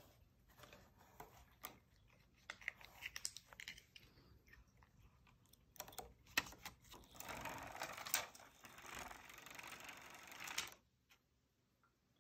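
Faint light clicks and taps, then a few seconds of steady mechanical whirring from the small motor of an electric fluttering-butterfly cat toy, which cuts off suddenly near the end.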